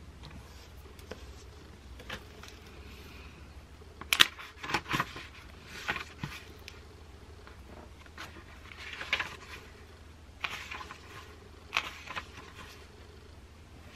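Pages of a book being flipped and riffled by hand: several bouts of paper rustling with short sharp crackles, the loudest about four seconds in, over a low steady hum.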